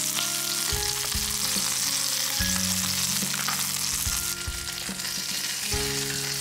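Starch-dusted chicken breasts frying in oil in a frying pan, a steady sizzle. Soft background music with sustained notes plays underneath.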